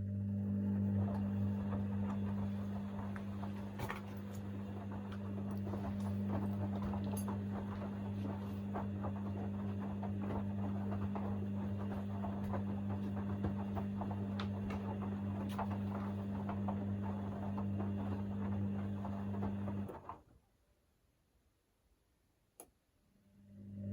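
Hoover DynamicNext washer-dryer in the main wash: the drum motor hums steadily while the wet laundry tumbles with soft splashing and clicking. The drum stops abruptly about 20 seconds in, pauses for a few seconds, then starts turning again near the end, the usual stop-and-turn rhythm of a wash cycle.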